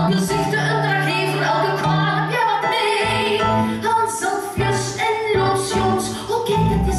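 Live musical-theatre song: female singing over instrumental accompaniment. A held bass note changes about three seconds in to a pulsing bass line.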